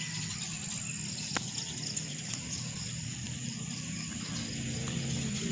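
Insects trilling steadily at a high pitch, with a single sharp click about a second and a half in.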